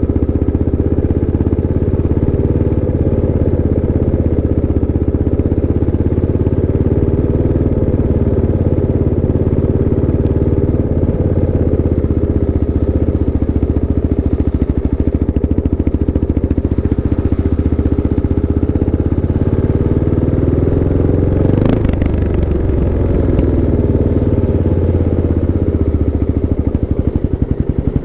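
Kawasaki KLX 650's single-cylinder four-stroke engine running, its pitch drifting gently up and down. There is one sharp knock about 22 seconds in, and near the end the engine settles into a slower, distinct beat.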